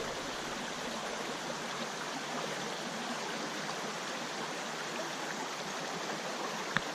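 Steady rushing of a flowing trout stream, with one faint click near the end.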